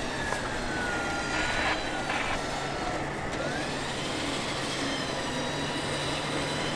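Steady engine hum under a whine that dips and then rises in pitch, from a winch hauling a stuck Lexus GX460 up a muddy rut. Two short bursts of noise come about one and a half and two seconds in.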